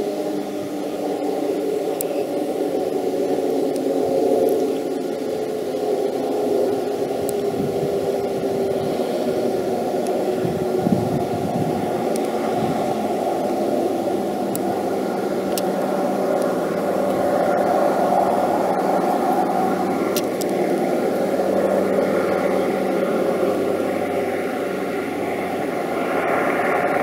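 A North American B-25 Mitchell's two Wright R-2600 radial piston engines drone steadily as the bomber comes straight in on approach with gear down. A broad rushing noise lies over the engine note.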